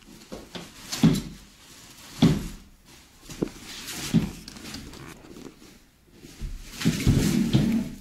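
Knocks and thumps of an exercise machine's packed parts and its cardboard box being handled on a laminate floor: four separate knocks in the first half, then a longer spell of knocking and rustling near the end.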